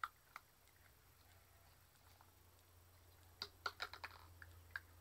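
Faint, crisp crunching of kerupuk crackers being fed to puppies: scattered sharp clicks, with a quick run of them a little past halfway and one more near the end.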